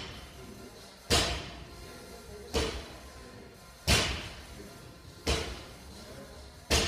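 A 225 lb barbell loaded with 45 lb plates dropping back onto the gym floor at each deadlift rep: five heavy thuds about one and a half seconds apart, each ringing on in a large room.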